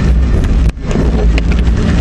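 Inside a car driving in heavy rain: rain pattering on the windshield and roof over a steady low road and engine rumble. The noise drops out briefly about a third of the way through.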